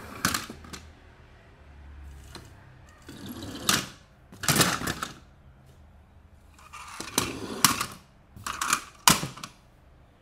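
Toy packaging handled during an unboxing: plastic and cardboard rustling and crackling in about five short bursts, with sharp clicks, the loudest near the end.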